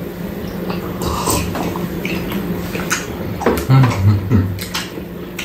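Close-up mouth sounds of people eating burritos: chewing and lip-smacking with small wet clicks. A short low hum-like vocal murmur comes about three and a half seconds in, over a steady low background hum.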